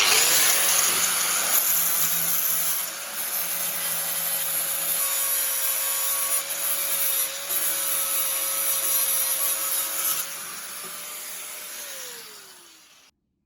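Electric angle grinder working steel tube: a steady hiss of the disc on the metal over a high motor whine. The contact noise eases about ten seconds in, and near the end the motor winds down and stops.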